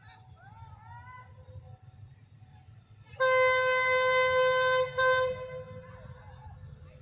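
Air horn of an approaching QSY diesel-electric locomotive: one long blast of about a second and a half, then a short blast just after. A few faint chirps come before it, over a low rumble.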